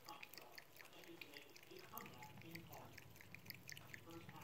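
A cat lapping water from a thin stream running from a bathroom tap: faint, quick wet ticks, several a second, over the light trickle of the water.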